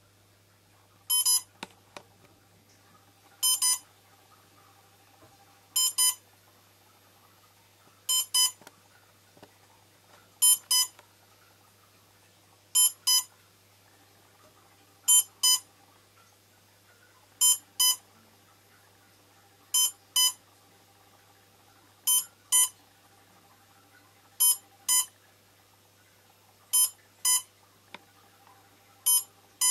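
Electronic beeper on a powered-up quadcopter sounding high-pitched double beeps, a pair about every two and a half seconds, steady and evenly spaced.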